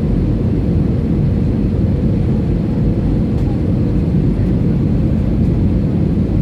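Steady low roar inside an Airbus A320-family airliner cabin during descent to land: engine and airflow noise heard from a window seat over the wing, with a faint steady hum above it.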